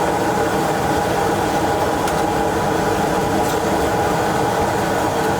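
A fan or blower motor running steadily: an even hum of several held tones over a low rumble.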